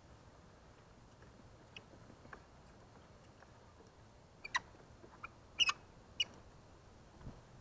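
Light clicks and taps of the gradiometer's plastic sensor housing being handled and fitted onto its staff mount, with a run of sharper clicks past the middle as it seats.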